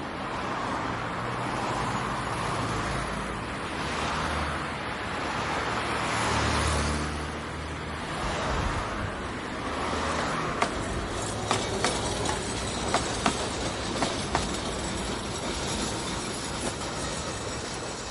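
City street ambience: a steady bed of traffic noise with vehicles swelling past, the loudest about a third of the way in. In the second half, a scattering of sharp clicks sounds over the traffic.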